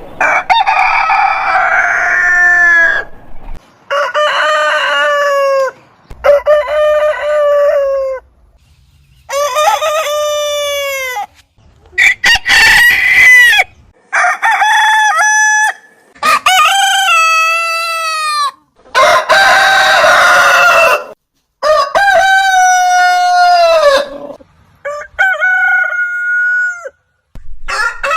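Roosters crowing one after another, about ten separate crows of roughly two seconds each with short gaps between. The pitch differs from crow to crow, as from different roosters.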